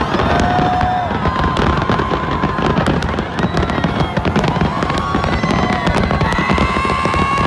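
A dense fireworks barrage: many aerial shells bursting close together in rapid bangs and crackles, with long held notes sounding over it.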